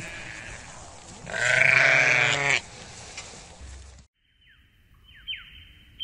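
A sheep bleats once, a long wavering call about a second in, over the background noise of a large flock. About four seconds in the flock sound cuts out, and a high electronic jingle of repeated falling chirps over a steady tone begins.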